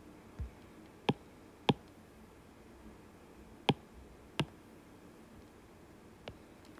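Sharp taps of a stylus on a tablet's glass screen: four distinct clicks spread over a few seconds, with a dull low bump near the start.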